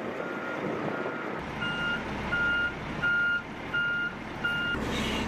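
A heavy military truck's reversing alarm beeping about one and a half times a second. It is fainter at first and louder from about a second and a half in, over the truck's diesel engine running. The beeps stop near the end, where there is a short hiss.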